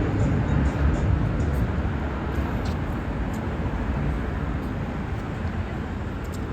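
Steady low rumble of city traffic outdoors, slowly easing off.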